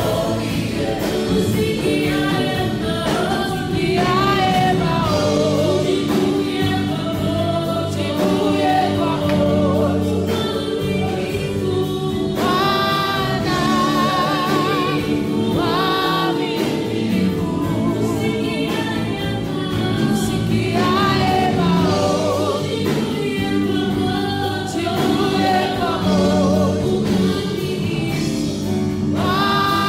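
Live gospel worship song: several voices, singers on microphones and the congregation, singing with vibrato over held keyboard chords through the church PA, with a woman singing along close by.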